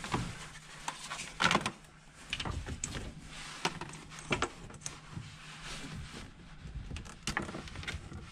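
Wiring being pulled and pushed by hand through a UTV engine bay: scattered light clicks, taps and rustles as the wires and their plastic crimp connectors brush and knock against hoses and parts.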